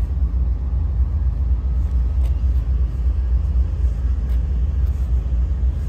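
Amtrak passenger train rolling out of the station past the platform: a steady low rumble, with a few faint clicks.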